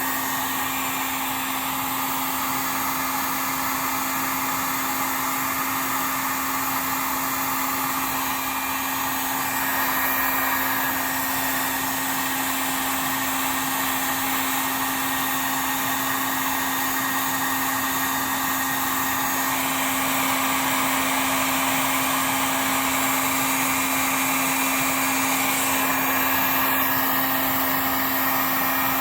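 Electric heat gun running on its high setting: a steady blowing rush with a constant low hum, its tone shifting slightly about two-thirds of the way through.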